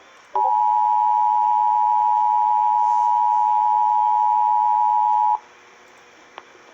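Emergency Alert System attention signal: the two-tone alarm (853 and 960 Hz sounded together) starting about half a second in, holding steady for about five seconds, then cutting off suddenly. It is the alert tone that heads a National Weather Service Special Marine Warning.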